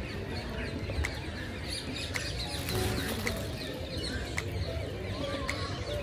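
A flock of aviary birds chirping and calling all at once, many short overlapping calls, over a low rumble with a few sharp clicks.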